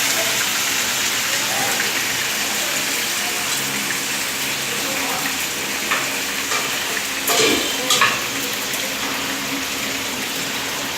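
Fish frying in a pan of oil on low heat: a steady sizzle, with a few short utensil clatters about six to eight seconds in.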